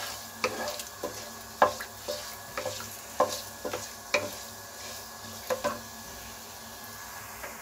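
Wooden spatula knocking and scraping against a kadhai while cumin and dried red chillies are stirred in hot oil, over a faint steady sizzle. About a dozen sharp taps come at irregular intervals, then stop about five and a half seconds in, leaving only the sizzle.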